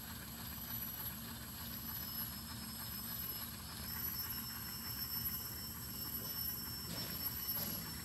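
Heavy logging truck engine running with a steady low rumble.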